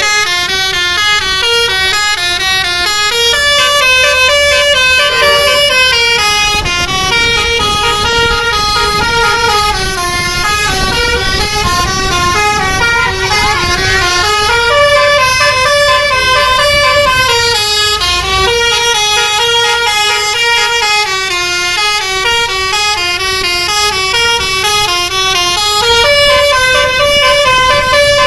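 Bus telolet melody horn playing a long, unbroken tune of stepped notes, several pitched tones sounding together, over a low rumble.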